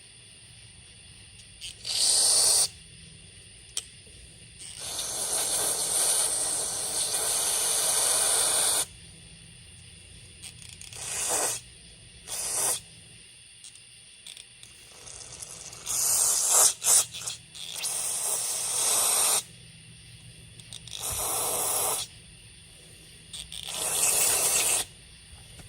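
Aerosol carburetor cleaner sprayed in a series of hissing bursts into a chainsaw carburetor's ports and passages. There are about seven squirts, some short and two held for several seconds.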